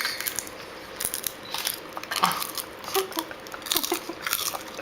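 Close-up crunching and crackling as a person chews a hard, dry cooked insect: many short irregular crunches.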